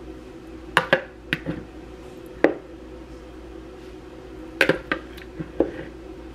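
A metal fork clinking against a serving bowl and the taco shells as shrimp is scooped out: several sharp clinks about a second in, one near the middle, and a cluster past the middle. Underneath runs a steady low hum.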